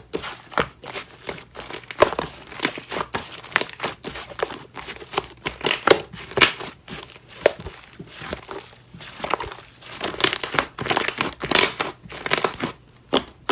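Slime being squished and worked by hand, giving irregular sticky crackling and popping clicks.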